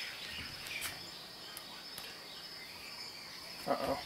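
Outdoor background of a steady high insect drone with faint bird chirps, a few light clicks, and a short, louder sound near the end.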